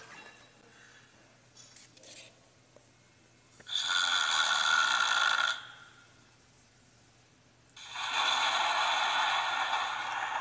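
A children's sound book's electronic sound panel plays two short, noisy sound effects through its small speaker: one lasting about two seconds, starting a third of the way in, and one lasting about three seconds near the end. Before them comes a faint rustle of a cardboard page being turned.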